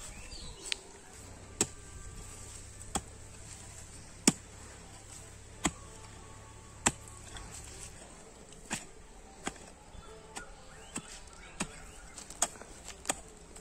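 Hand-forged hoe blade chopping into dry, hard soil: about a dozen sharp strikes, slow at first and coming quicker in the second half.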